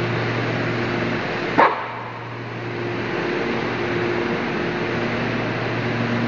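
Blower of a stevia dryer running steadily with a low hum, and a single short dog bark about a second and a half in.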